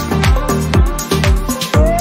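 Background electronic dance music with a steady kick drum, about two beats a second, and a melody line over it.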